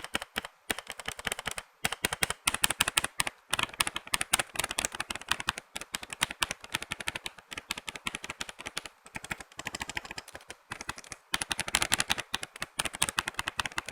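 Fast typing on a custom-built Royal Kludge RK87 mechanical keyboard as a sound test: a dense, irregular run of key clicks and clacks with a few short pauses.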